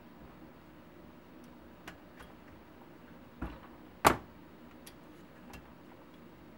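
Clicks and knocks of hand tools working a valve spring compressor on a cylinder head while the valve springs go back on: a few light clicks, a dull knock a little past three seconds, and one loud sharp clack just after four seconds.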